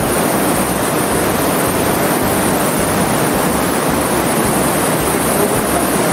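Loud, steady rushing noise with an uneven low rumble underneath.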